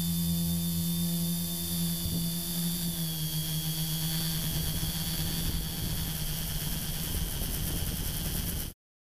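Electric motors and propellers of a Batbones tricopter, heard from the camera mounted on the craft, running as a steady low drone with higher whines above it. The sound cuts off suddenly near the end.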